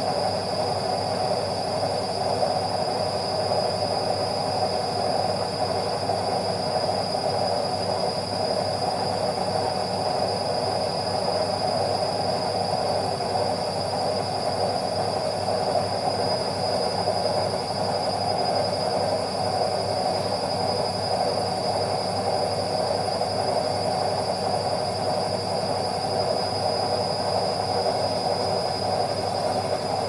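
Indesit front-loading washing machine on its full spin cycle: a steady hum of the spinning drum and motor with a thin, even high whine over it.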